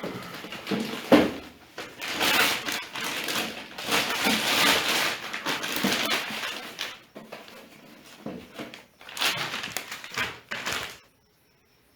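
Packaging being handled and pulled open: rustling, crinkling and scraping of cardboard and plastic in irregular bursts, with a few knocks, stopping suddenly near the end.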